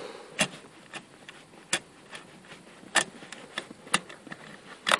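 Irregular sharp metallic clicks and clinks, about seven in all, from the loosened seat belt buckle and its hold-down bolt being handled. The last, near the end, is the loudest and rings briefly.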